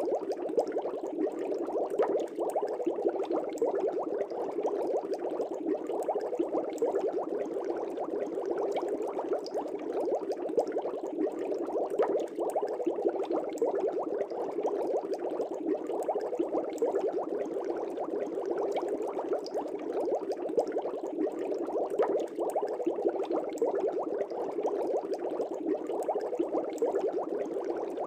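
Aquarium air bubbles rising and breaking at the water surface in a fish tank: a continuous dense bubbling and splashing at an even level.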